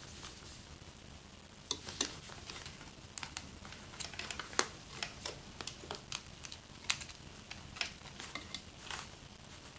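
Irregular sharp clicks and light scraping of small parts being handled and worked on a plastic DJI Phantom remote controller. They start just under two seconds in, and the loudest click comes about halfway through.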